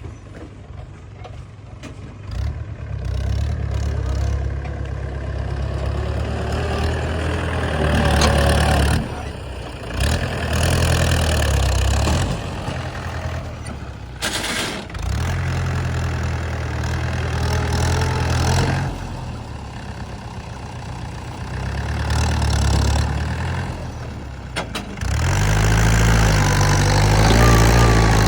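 Backhoe loader's diesel engine running and revving up and down in repeated surges as it works, dropping back between surges.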